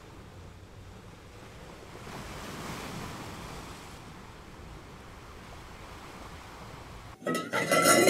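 Steady sea surf with some wind. About seven seconds in, it cuts off abruptly and a sudden loud, pitched sound starts.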